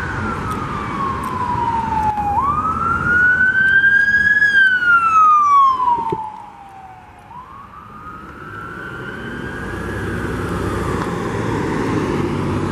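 Emergency medical vehicle's electronic siren in wail mode, its pitch sweeping slowly up and down a few seconds per cycle. It is loudest as the vehicle goes by, drops off sharply about six seconds in, then builds again, over low engine and road noise.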